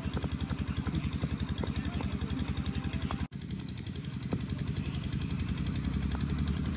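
An engine running steadily with a fast, even putter. It cuts out for an instant a little past three seconds in, then runs on slightly rougher.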